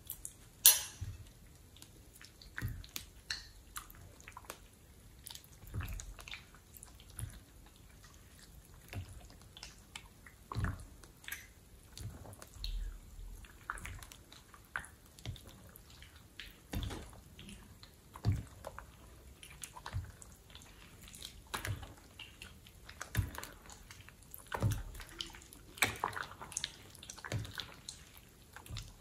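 Wet, sticky squelching and clicking of thick slime, stirred with a metal utensil in a glass bowl and then squeezed and kneaded by hand, in irregular squishes. A single sharp click about a second in is the loudest sound.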